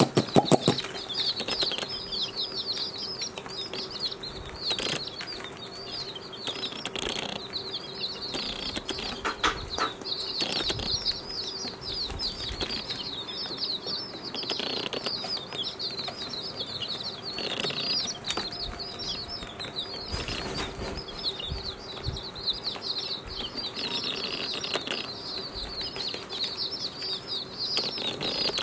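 A flock of baby chicks peeping continuously, many short high cheeps overlapping into a dense chorus. A few clicks and knocks, the loudest about half a second in.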